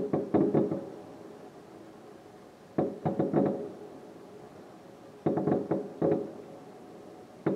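Fireworks shells bursting in four quick salvos about two and a half seconds apart. Each salvo is three or four sharp bangs that fade within about half a second.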